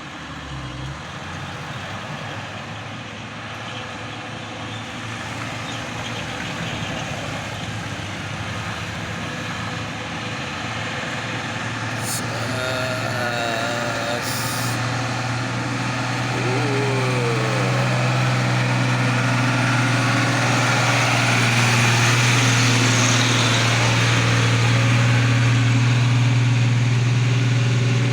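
Heavy bus engine running close by, its low steady hum growing steadily louder, over a wash of road traffic noise.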